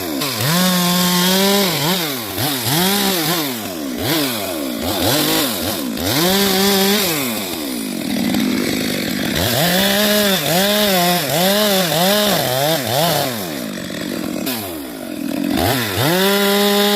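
Chainsaw cutting rubber tree wood, the engine revving up to full speed and dropping back to a lower pitch again and again, with short dips in pitch while it is held at high revs.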